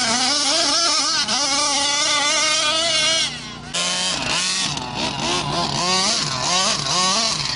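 O'Neill Brothers 50.8cc inline twin two-stroke engine of an HPI Baja 5B RC buggy, running on methanol, revving up and down as it is driven hard. The sound drops away for about half a second a little past three seconds in, then the revving picks up again.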